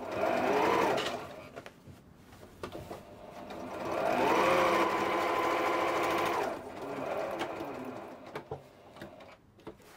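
Janome electric sewing machine stitching a side seam in short runs: a brief run at the start, then a longer run from about three and a half to six and a half seconds in, its motor pitch rising as it speeds up and falling as it slows, with light clicks between runs.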